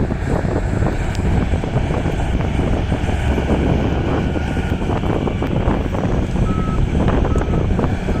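Heavy mining machinery at work: a Komatsu D375A bulldozer and a PC1250 excavator with their large diesel engines running hard under load, and a constant clatter of knocks from the tracks and the rock. A few short beeps sound in the second half.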